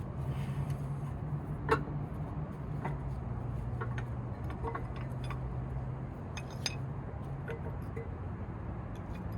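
Light metallic clinks and taps of brake pads and caliper hardware being handled as the pads are worked out of the caliper, with one sharper clink about two seconds in. A steady low hum runs underneath.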